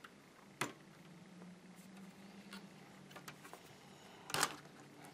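Faint clicks and small ticks as fingers and a thin tool work the old LCD panel loose from the laptop's lid, with a brief scratchy crackle about four and a half seconds in. A faint steady low hum sits underneath.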